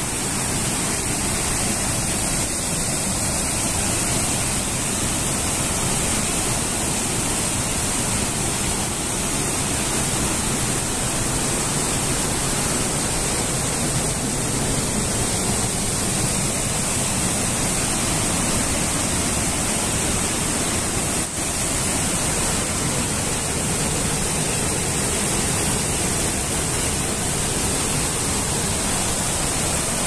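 Steady rush of a waterfall, an even hiss of falling water with no pauses.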